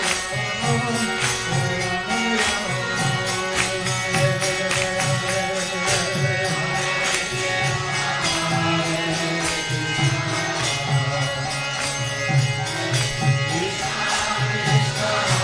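Background devotional music: a chanted song over held drone notes and steady percussion.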